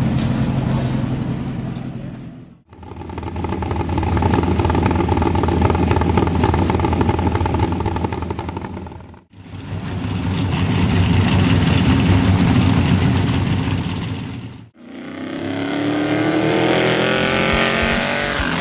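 Off-road race truck's engine running hard at speed, heard in separate stretches that each fade in and out. In the last stretch the engine revs up, its pitch rising.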